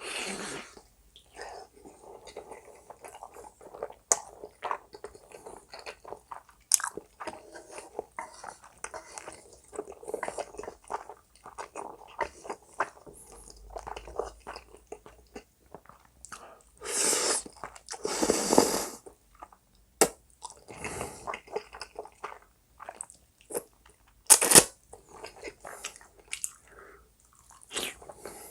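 Close-miked mukbang eating sounds: chewing and biting of spicy black-bean noodles and Spam, with wet mouth noises and a few sharp clicks. About two-thirds of the way through there is a longer, louder noisy stretch lasting a couple of seconds.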